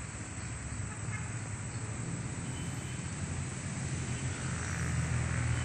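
Steady outdoor background noise with a low rumble that grows a little louder toward the end.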